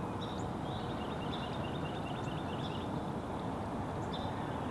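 Steady low outdoor background noise, with faint short high chirps scattered through it.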